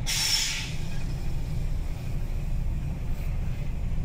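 Truck engine running steadily while driving, a low drone heard from inside the cab, with a short hiss right at the start.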